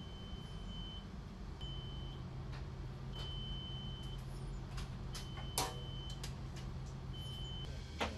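Steady low hum in an aircraft cabin, with high electronic beeps from medical equipment sounding on and off in beeps of uneven length. A second low drone comes in about a second and a half in. A few clicks and knocks are heard, the loudest a little past halfway and another just before the end.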